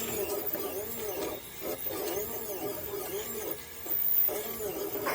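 CreateBot supermini 3D printer's stepper motors whining as the print head moves, the pitch rising and falling in repeated arcs about twice a second, with brief pauses about a second and a half in and near four seconds in.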